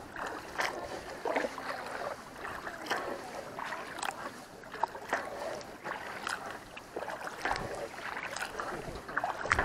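Kayak paddle strokes splashing in the water, about one a second, with water lapping at the kayak's hull.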